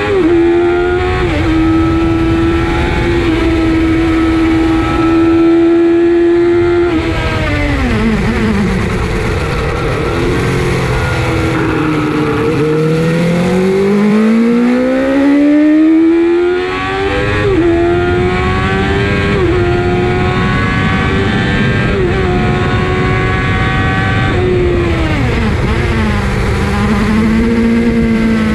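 Suzuki GSX-R 750 SRAD's inline-four engine heard from the rider's seat at track speed. It holds high revs, drops sharply as the throttle shuts for a corner about seven seconds in, then climbs again through a run of quick upshifts and falls once more near the end. A steady rush of wind runs under it.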